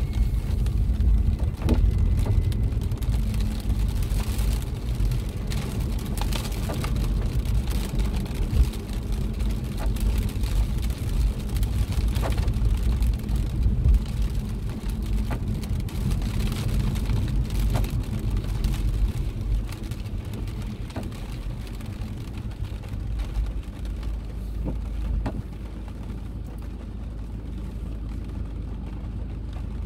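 Car cabin noise while driving in rain: a steady low rumble of the moving car with scattered raindrops tapping on the glass and roof. The rumble eases near the end as the car slows to a stop.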